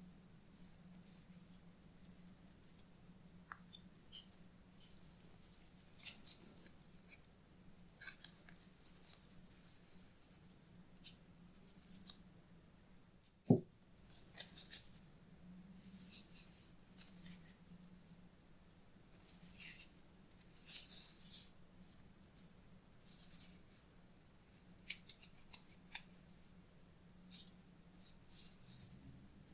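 Faint, scattered clicks and scraping of small hand-tool work on the belt, with one sharp click about halfway through, over a faint steady hum.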